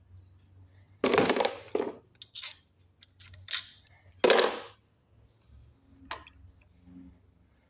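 Metal hand tools clinking and clattering, with two loud clatters about one and four seconds in, shorter clinks between them, and a single sharp click a little later.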